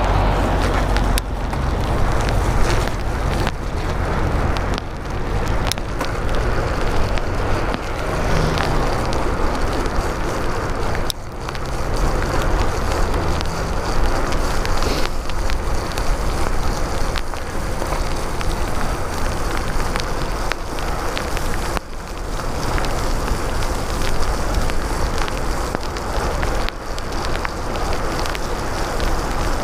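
Wind buffeting the microphone along with bicycle tyres hissing over wet pavement during a ride in the rain.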